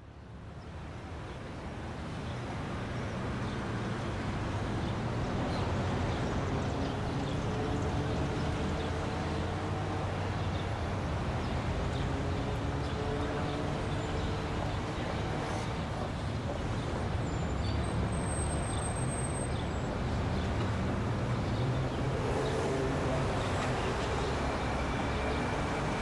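Steady road-traffic noise, fading in over the first few seconds and then holding level.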